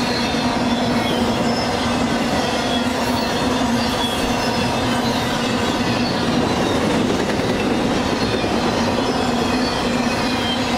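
Double-stack intermodal freight cars rolling past at close range: a steady, loud rumble of steel wheels on rail, with faint steady whining tones over the noise.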